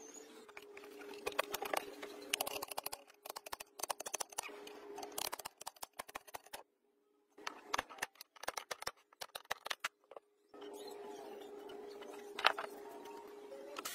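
Hand-tool work on a generator head's end housing: wrench clicks and metal parts clinking and scraping in short runs, over a steady hum. The sound drops out to silence for a moment about halfway.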